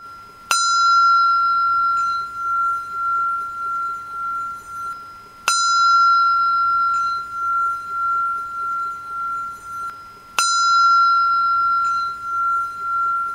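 A bell struck three times, about five seconds apart, each strike ringing on as one clear high tone that wavers in loudness as it slowly fades.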